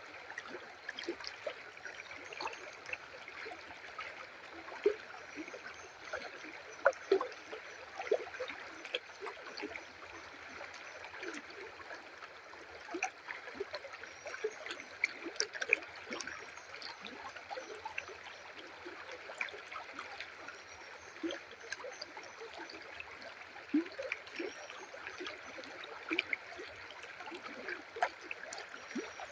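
Shallow river water running and trickling steadily, with small gurgles and splashes scattered irregularly throughout.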